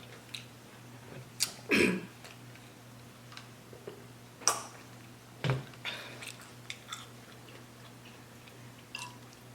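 Close-miked eating sounds: irregular chewing with a dozen or so short crunches and wet mouth clicks.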